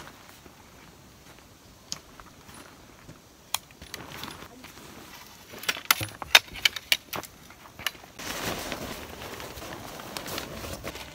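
Small objects being handled, with sharp clicks and clinks: sparse at first and busiest a little past the middle. From about eight seconds in, a steady rustling takes over.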